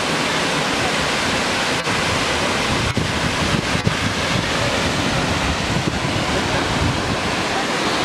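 Steady rush of Salt Creek Falls, a tall plunge waterfall, pounding into its pool. Wind gusts on the microphone add a low rumble a few seconds in.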